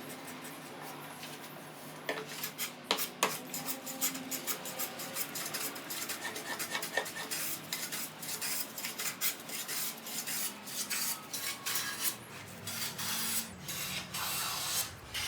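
Hand-tool work on wood: irregular light clicks and taps with some scraping, starting about two seconds in.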